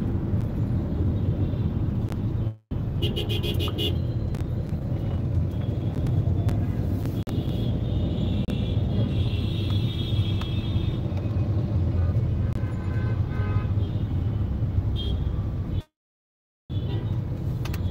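Steady low rumble of a car's engine and road noise heard from inside the cabin, driving in traffic, with vehicle horns honking about 3 s in and again around 8 to 11 s. The audio cuts to silence twice, briefly.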